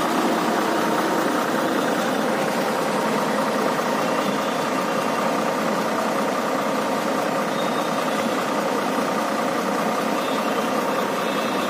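Diesel engine of an Ashok Leyland TF1812 bus chassis idling steadily.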